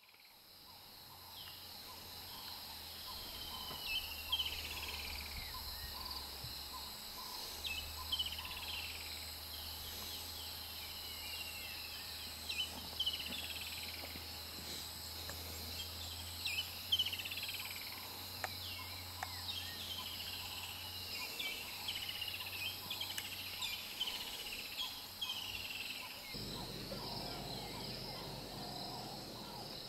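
African bushveld ambience: steady insect buzzing with birds calling in repeated short downward-sliding notes. A low hum runs underneath and gives way to a rougher low rumble near the end.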